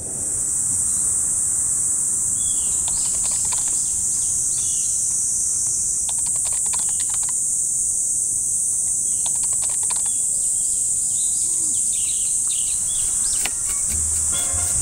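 Steady, high-pitched drone of cicadas, with scattered bird chirps and three short bursts of rapid clicking. Soft music comes in near the end.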